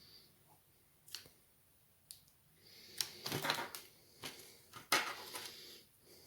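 Handling noise from taking a laptop apart: sharp plastic and metal clicks, with a stretch of rapid clicking and scraping about two and a half seconds in and a loud click near the end.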